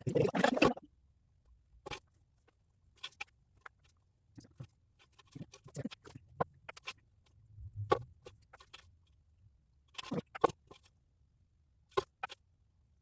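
Hand work on a hubcap: a short stretch of scratchy rubbing that stops about a second in, then scattered light scrapes, taps and clicks as the piece and tools are handled.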